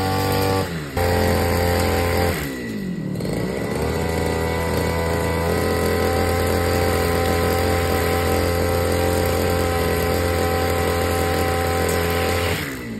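Petrol brush cutter with a nylon-line trimmer head running at high revs while cutting grass. About a second in the revs dip briefly. Between about two and four seconds in the throttle eases off, and the engine note falls and then climbs back to full speed. The sound drops away near the end.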